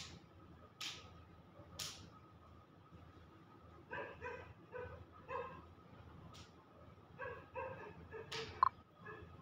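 Three sharp clicks about a second apart, then, from about four seconds in, a run of short pitched yelping calls from an animal, mostly in pairs and faint.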